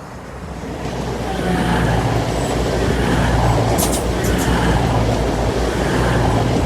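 A diesel multiple-unit train approaching and running past, its engine and wheel noise rising in level over the first two seconds and then holding steady. A few sharp high clicks come from the wheels on the track about four seconds in.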